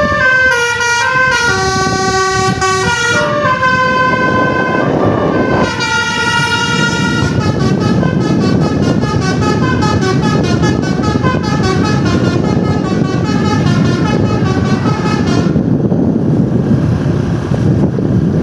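Tour bus 'telolet basuri' musical air horn playing a tune: a series of held notes stepping in pitch, then a quick warbling run of alternating notes. The horn stops about 15 seconds in, leaving a steady rumble.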